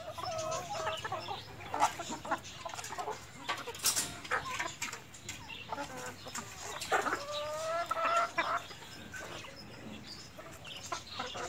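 A flock of Aseel chickens clucking and calling, with a longer call about seven seconds in, among scattered sharp clicks.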